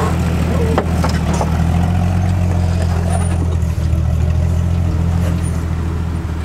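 Jeep engine running steadily at low revs as it crawls over rocks, with a few short clicks.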